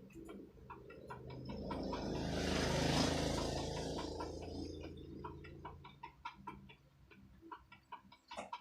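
A passing vehicle swells in, is loudest about three seconds in, and fades away by about six seconds. Short clucks or clicks repeat all through it.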